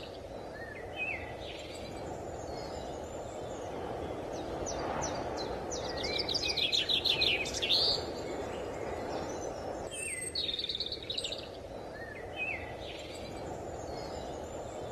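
Birds chirping and trilling over a steady rushing background noise, with a busy burst of rapid chirps in the middle. The same stretch of birdsong comes round again about ten seconds in, like a looped nature ambience.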